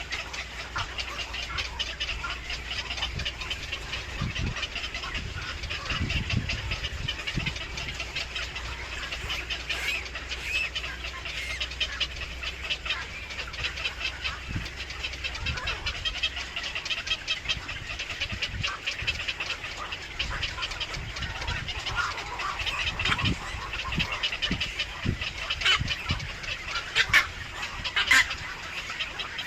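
Birds chirping rapidly and without pause, in a dense high-pitched chatter, with a few louder calls near the end. A low steady hum underneath stops a little past halfway.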